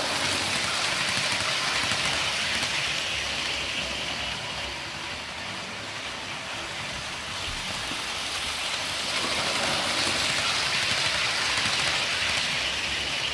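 Model Virgin Pendolino train running on the layout's track, a steady hiss of its motor and wheels on the rails. It is louder as the train passes close at the start and again from about nine seconds in, and quieter in between as it goes round the far side of the oval.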